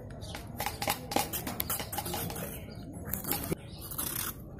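Small knife slicing a fresh sponge gourd (nenua) held in the hand over a steel bowl: a quick, uneven series of crisp cutting clicks as the pieces come off.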